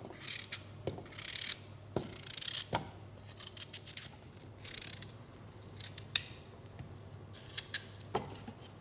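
A small knife slicing chunks off a peeled cooking apple held in the hand, with crisp, short cutting swishes, and a few sharp knocks as the pieces drop into a stainless steel saucepan.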